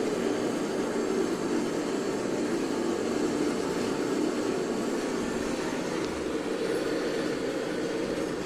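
A machine running steadily: an even low rumble with a hiss over it, unchanging throughout.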